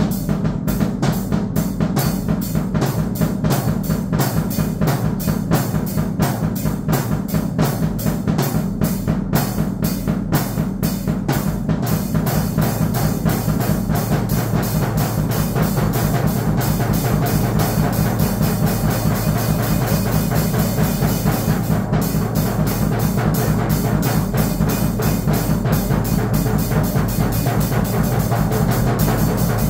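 Drum kit played in a fast, busy rhythm with quick, evenly spaced hits. About twelve seconds in the pattern becomes denser, with a constant cymbal wash on top.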